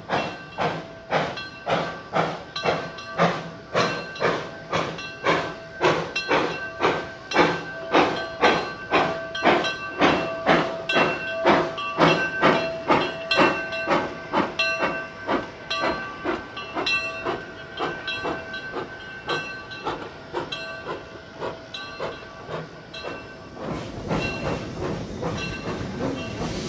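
Steam locomotive No. 6 of the Surry, Sussex & Southampton chuffing in a steady rhythm of about two exhaust beats a second, with steam hissing; the beats fade after about twenty seconds. In the last few seconds, the even rumble of a railroad car in motion.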